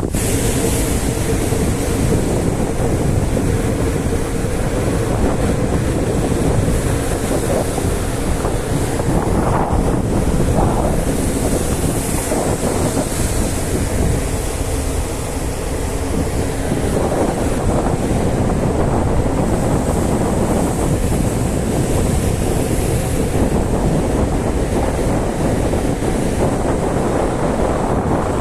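Strong wind buffeting the microphone over rough seas breaking and washing against a ship, a loud steady rush with swells rising and falling.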